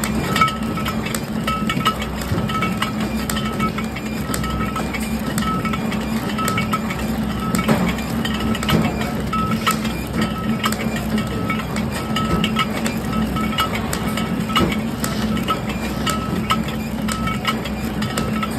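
Flow-wrap packaging machine running, sealing and cutting soap bars in printed film: a steady low hum with a short high tone repeating about twice a second and scattered mechanical clicks.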